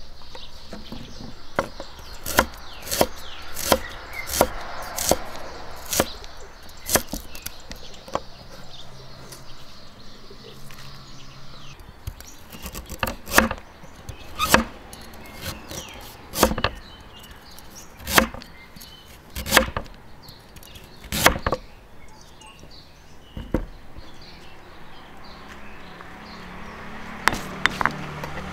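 Cleaver chopping lemongrass and garlic on a wooden cutting board: sharp knocks of the blade on the board, about two a second at first, then louder single chops about a second apart.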